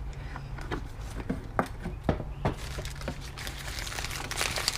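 Items and packaging being handled during an unboxing: scattered light clicks and knocks of objects being picked up and set down, then packaging crinkling from about three and a half seconds in.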